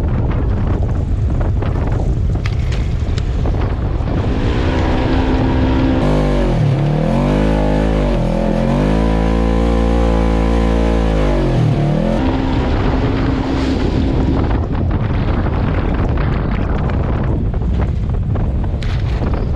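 Polaris General 4 1000's parallel-twin engine running through an HMF Titan dual full exhaust on the move, with wind on the microphone over most of it. For about six seconds in the middle the exhaust note is heard up close, its revs dipping and climbing again a few times.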